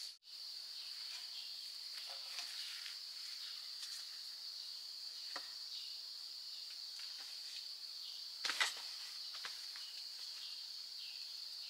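Insects droning steadily at a high pitch, with a few faint ticks and knocks scattered through. The loudest is a short double knock about two-thirds of the way in.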